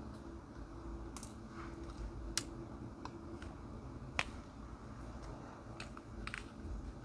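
Small sharp clicks, about one a second at an irregular pace, from a diamond-painting drill pen picking up resin drills and pressing them onto the canvas, over a faint low hum.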